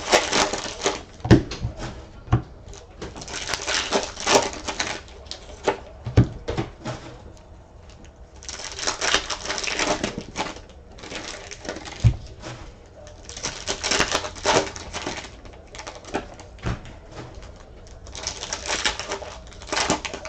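Computer keyboard typing in short bursts of rapid key clicks, about five bursts a few seconds apart.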